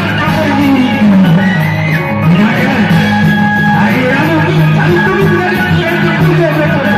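Loud live reog performance music with singing, played over loudspeakers: low notes held steady beneath a melody that slides up and down in pitch.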